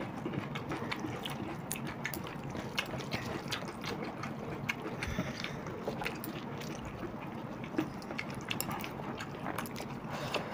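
Hands mixing and squeezing soaked water rice (pakhala bhata), a steady run of small wet clicks and squelches.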